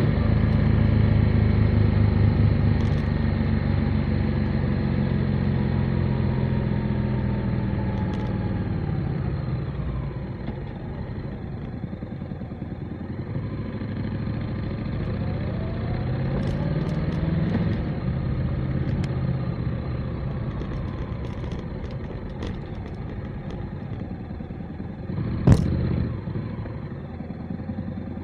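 Motorcycle engine running under way, its pitch falling as the rider eases off over the first several seconds, then rising again about halfway through as it pulls up. A single sharp knock near the end is the loudest sound.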